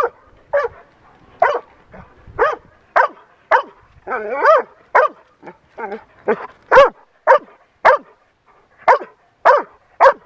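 Human-remains search dog barking over and over in short, loud barks, about two a second, with one longer drawn-out bark about four and a half seconds in.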